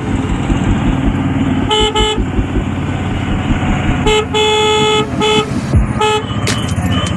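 Vehicle horn honking in short toots: two quick beeps about two seconds in, then a run of beeps, one held longer, from about four to six seconds in. The horns sound over steady engine and road rumble.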